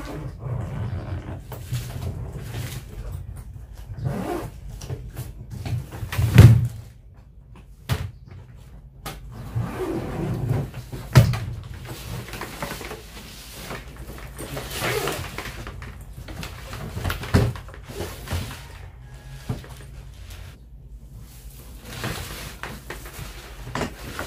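Hard-shell suitcase being handled: knocks and thumps as it is tipped down and laid flat, the loudest about six seconds in, then a zipper being run open around the case.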